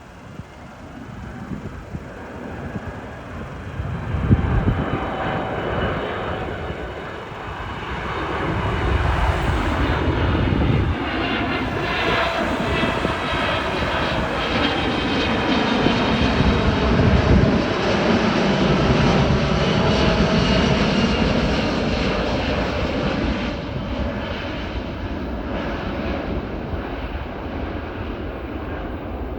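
Airliner on final approach passing low overhead: engine noise builds, stays loud for about fifteen seconds with a shifting whine, then eases off as it moves away.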